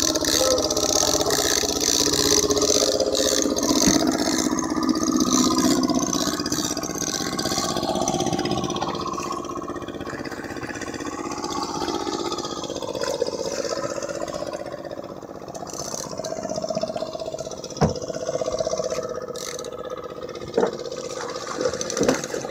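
Small fishing boat's inboard engine running steadily, with a few short knocks in the last few seconds.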